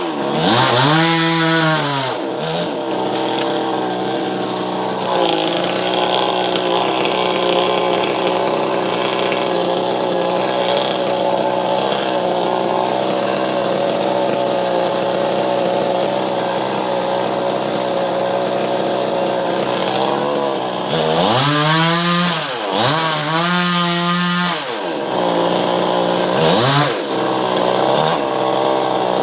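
Chainsaw cutting a coconut tree, its engine running throughout. The pitch rises and falls in quick revs near the start and again about three quarters of the way through, and holds steady in between.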